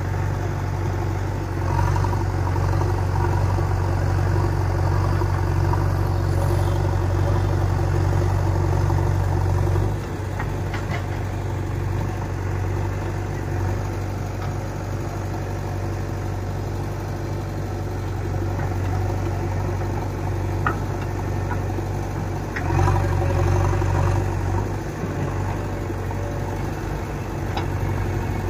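Heavy diesel engine running steadily at low revs, louder for the first ten seconds and again briefly near the end.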